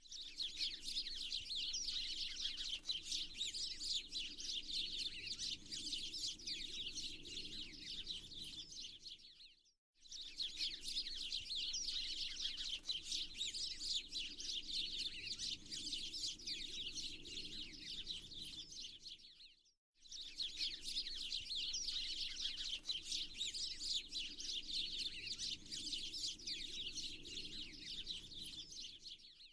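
Dense chorus of many small songbirds chirping and twittering. The birdsong drops out briefly and starts again about every ten seconds, as a looped ambience track does.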